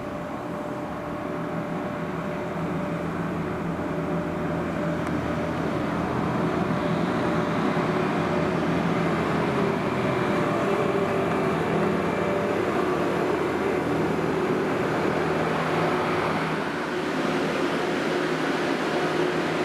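New Holland skid-steer's diesel engine running steadily, its pitch holding with small shifts and growing a little louder over the first few seconds.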